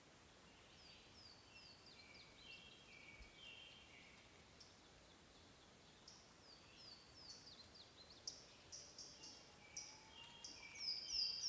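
Faint songbird song: series of short, high, falling chirps, coming thicker and a little louder toward the end, over a quiet background hiss.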